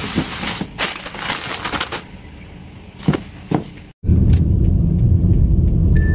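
Plastic bags crinkling and rustling as food is packed into a polystyrene cooler box. About four seconds in, this cuts to a car's steady low road and engine rumble heard from inside the cabin.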